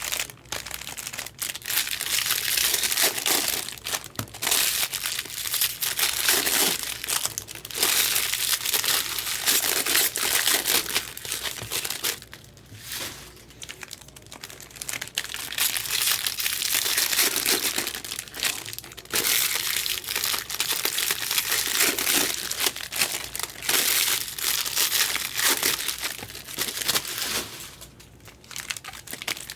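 Plastic wrapping crinkling and tearing as it is handled and pulled off trading-card boxes, almost without a break, with short pauses about midway and near the end.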